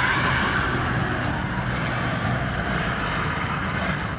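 A truck running at speed while it drags an auto-rickshaw along the road: steady engine and road noise.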